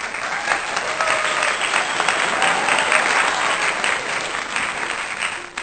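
A crowd applauding, a dense patter of many hands clapping with some voices mixed in, lasting about six seconds and then cutting off.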